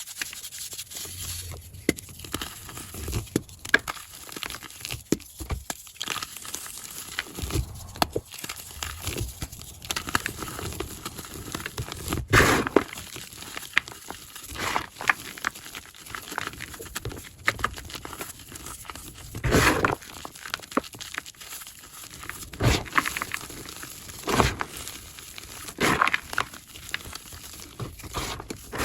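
Blocks of dyed gym chalk being crushed by hand, sped up to double speed: irregular crumbly crunches and crackles, with louder crunches every few seconds.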